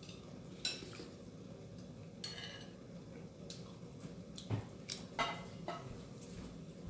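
Tableware clinking now and then: spoon and dishes knocking against ceramic bowls and plates in about half a dozen light, separate clinks.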